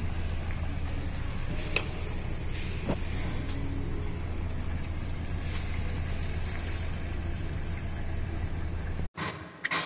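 Hot engine oil pouring steadily from the open drain plug hole of a 2021 Toyota Tacoma's oil pan into a drain pan, a continuous splashing rush over a steady low hum, with a couple of faint clicks. It cuts off abruptly near the end.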